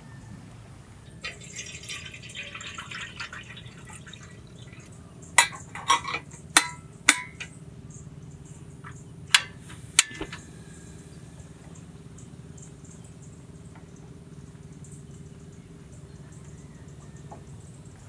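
Sharp clicks of a portable gas stove's ignition knob being turned under a gooseneck kettle, six clicks spread over about five seconds. A few seconds of crackling hiss come before them.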